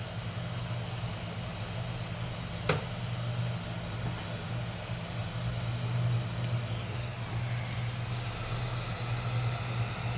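Hot-air rework blower running steadily with a low hum and airy hiss, heating a laptop's touch bar to loosen its adhesive; a single sharp click sounds about three seconds in.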